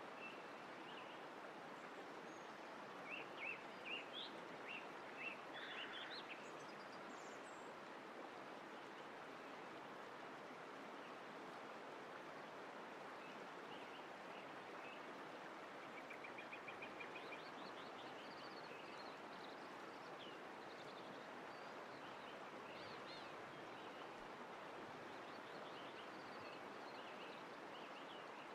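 Faint steady rush of flowing water with small birds chirping now and then, including a quick trill of chirps about sixteen seconds in.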